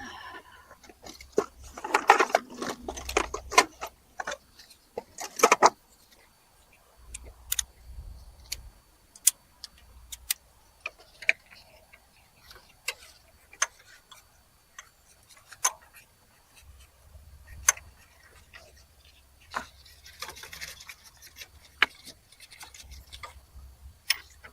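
Hand tools working on a car: a ratchet wrench clicking and metal tools clinking in irregular spells while a replacement starter motor is being bolted in. The clicks are busiest near the start and again near the end.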